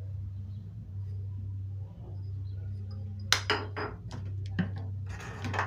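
Kitchen items being handled and set down: a quick cluster of sharp clicks, knocks and light clinks a little over three seconds in, then a brief scrape or rustle near the end, over a steady low hum.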